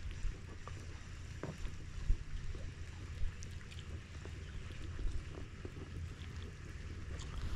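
Wind rumbling on the microphone out on the water, with small scattered clicks and knocks.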